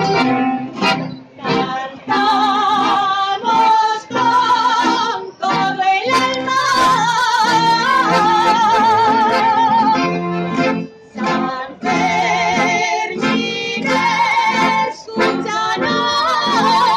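Accordion and guitars accompany a group of people singing a song for San Fermín. The sung lines waver in pitch, with brief pauses between phrases.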